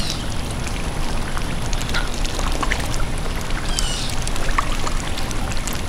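Steady rushing noise like pouring water, with a few faint clicks and a brief high chirp about four seconds in.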